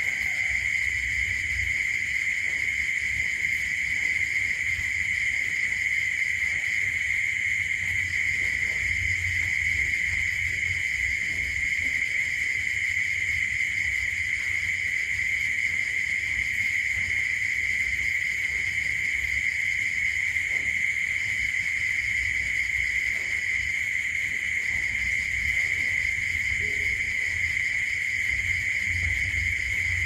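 Steady, unbroken chorus of crickets, one high trill, over a faint low rumble.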